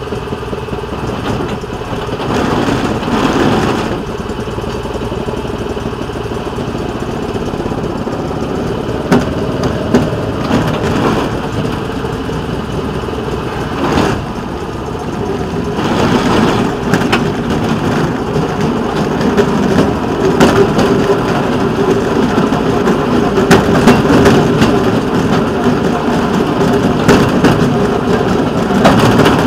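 Rail vehicle's engine running steadily as it rolls slowly along yard track, with a few sharp clacks from the wheels about a third and halfway in. The engine gets louder about halfway through.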